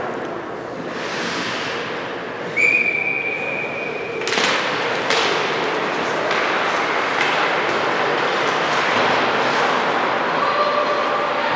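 Rink ambience of a youth ice hockey game, with a referee's whistle blown once for about a second and a half, followed by a few sharp knocks from play on the ice.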